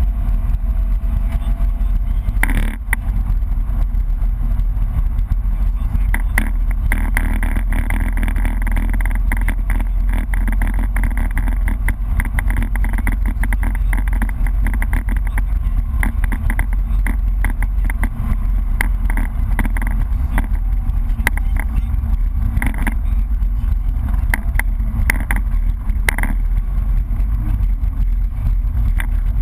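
BMW E30 rally car's engine running hard at speed, heard from inside the cabin over steady road and tyre noise, with occasional sharp knocks.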